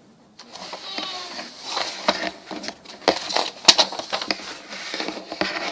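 Lego Technic parts and packaging being handled: irregular clicks and rustling, with the sharpest click a little before four seconds in.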